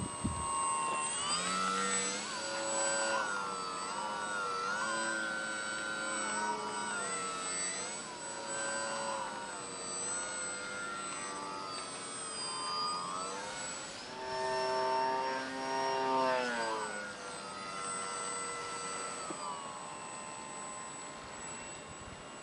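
Grayson Hobby GH2217-09 brushless motor spinning a 10x5 propeller on an RC foam-board plane in flight: a buzzing whine whose pitch rises and falls with the throttle. It climbs sharply and is loudest around fourteen to seventeen seconds in, then settles into a steadier, lower tone near the end.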